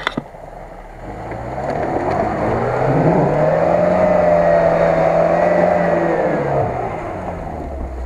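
Lada Niva's engine revving up under load, held at high revs for a few seconds, then easing off near the end as the car climbs a forest rut. A couple of sharp clicks come right at the start.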